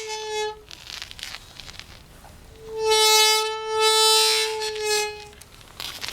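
A Merida bicycle squeaking: a high, steady squeal on one held pitch, the tail of one fading just after the start, and a longer one of about two and a half seconds starting near the middle and swelling twice. Faint clicks between the squeals.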